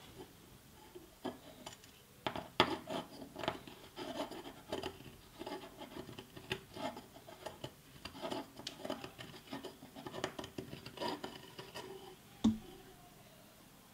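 Steel reamer blade scraping around the inside rim of a freshly cut copper tube, deburring the cut end in many short, irregular scrapes. A single knock sounds near the end.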